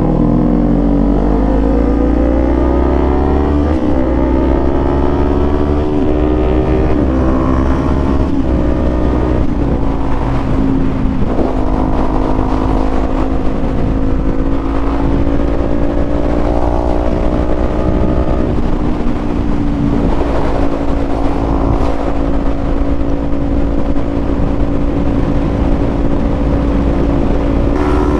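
Kawasaki Z400 parallel-twin engine with an aftermarket exhaust pulling up through the gears, its pitch climbing and then dropping at an upshift about four seconds in and again about seven seconds in, then holding a steady cruise. Low wind rumble on the helmet microphone underneath.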